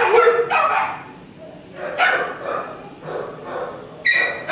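Kennel dogs barking, several short barks spaced about a second apart.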